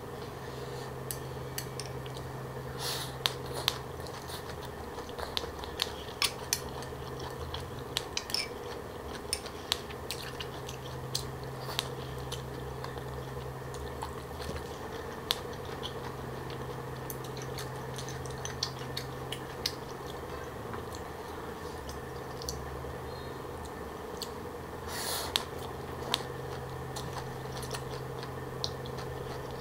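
Close-up chewing of green papaya salad with pig ear: a stream of irregular sharp crunches from the crisp shredded green papaya and the gristly pig ear, with two brief louder noisy sounds about three seconds in and near the end. A steady low hum runs underneath.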